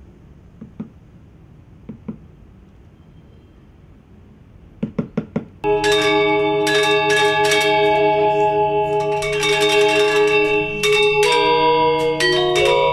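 A few faint taps of a wooden mallet on a hole punch piercing puppet leather. About six seconds in, gamelan music begins and takes over: ringing metallophone and gong notes over a low steady drone.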